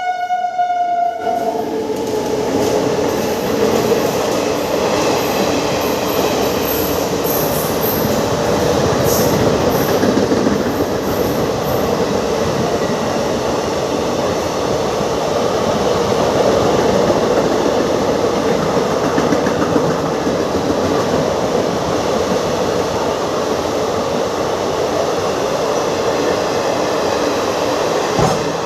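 Express train horn sounding and cutting off about a second in, then the loud, steady noise of the train running through at speed, its wheels rattling over the rails.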